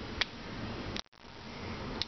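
Pliers working a small steel retaining ring onto the pin of a jigsaw's gear: light handling noise with one sharp metallic click a quarter second in. The sound drops out briefly about a second in.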